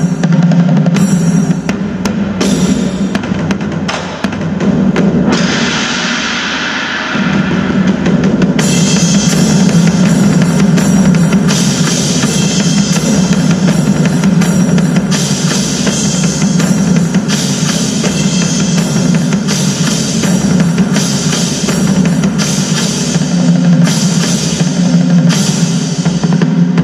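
Chinese lion dance percussion: a large Chinese drum beaten in a fast, continuous rhythm with crashing hand cymbals over it. For a few seconds, from about four seconds in, the drum drops away and only the cymbals are left, then the drum comes back in.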